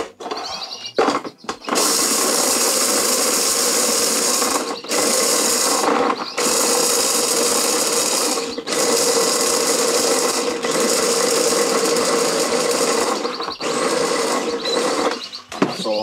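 Philips electric mini chopper blitzing fresh broccoli with frozen peas, run in about six pulses of one to three seconds each with brief pauses between.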